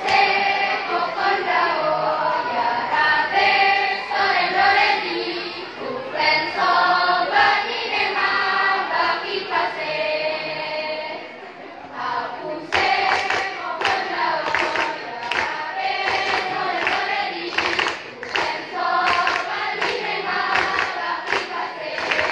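Girls' school choir singing together. About halfway through, sharp percussive beats come in over the voices at about two a second, keeping time.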